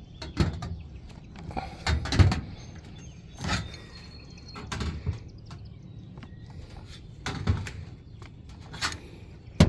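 Copper roofing sheet being crimped and bent down onto a curve with hand crimping tools: scattered clicks and crunches of the metal, the loudest about two seconds in.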